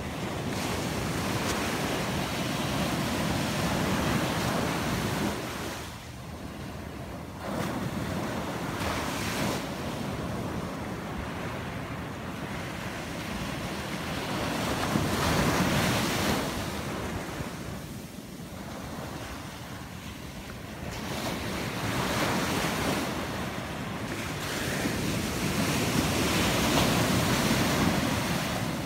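Atlantic Ocean surf breaking and washing up a sandy beach, the sound swelling and fading as each wave comes in.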